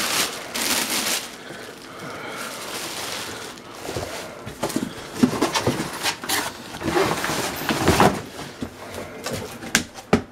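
Cardboard and packing material rustling and scraping as an inline duct fan is pulled out of its shipping box. There are a few sharp knocks near the end as it is set down.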